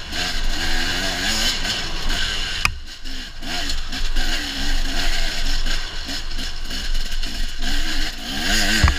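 Enduro dirt bike engine heard from the rider's helmet, revving up and dropping back again and again as the throttle is worked over rocky ground, with a steady rushing hiss over it. The engine note falls away briefly about three seconds in, and a sharp knock comes near the end.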